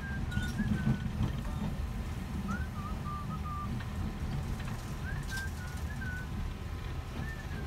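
Steady low rumble of a Philippine National Railways train, with a short whistled phrase — one rising note then a few short notes — repeating about every two and a half seconds.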